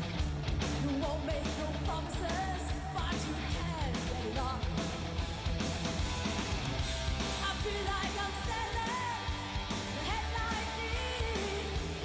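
Heavy metal song played live by a full band, with a woman singing hard over it.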